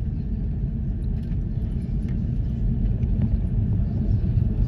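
Airliner cabin noise: a steady low rumble of the plane rolling on the ground after landing, with faint rattles, growing a little louder near the end.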